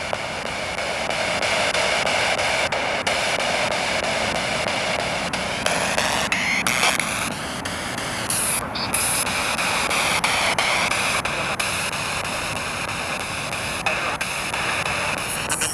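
Spirit box radio sweeping through stations: a steady rush of static broken by faint clicks, with brief wavering tones.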